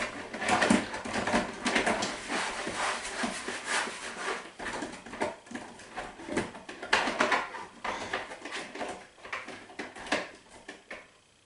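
Small plastic craft-paint bottles rattling and clattering against each other as someone rummages through them by hand. The irregular knocking tapers off near the end.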